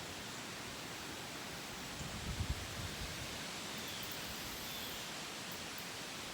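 Steady outdoor rushing noise, with a few low thumps about two seconds in and three faint, short high chirps in the second half.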